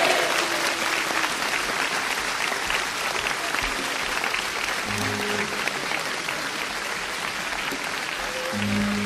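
Concert audience applauding at the end of a song, an even patter of many hands clapping. From about halfway, a few low held notes come in under the clapping.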